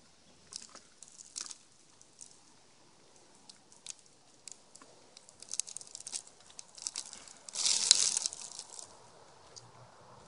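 Eastern gray squirrel foraging in scattered bird seed close to the microphone: irregular crunches, clicks and rustles of seeds being shifted and picked at, with a louder burst of rustling about eight seconds in.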